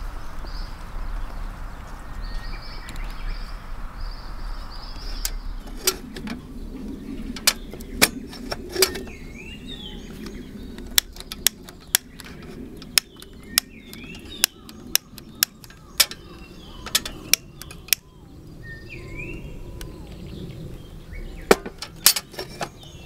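Camping gear being moved and handled: a rumbling rustle for about the first six seconds, then many sharp, irregular clicks and knocks. Small birds chirp in the background.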